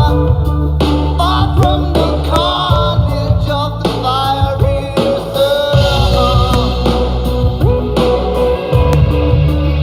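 Rock song with a singing voice and guitar over heavy bass, played loud.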